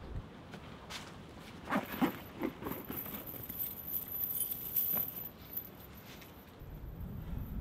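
A few light clicks and rattles of a hand handling a canvas backpack and its patches, bunched about two seconds in, with one more click near five seconds.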